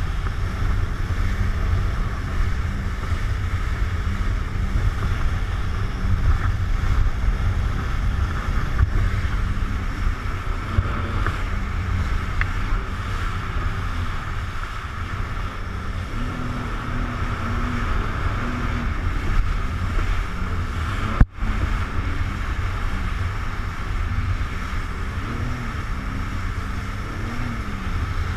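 Jet ski running at speed across open water, its engine and the rushing spray buried under heavy wind buffeting on the microphone; the engine pitch wavers in the second half. The sound cuts out for an instant about three quarters of the way through.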